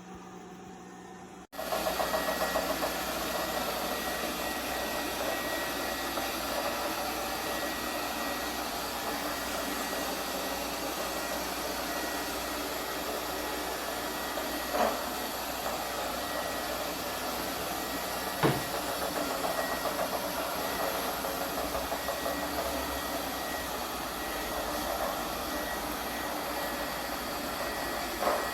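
Lefant M210 Pro robot vacuum running, a steady whir of its suction motor that cuts in suddenly after a quieter hum, with a few brief knocks in the second half.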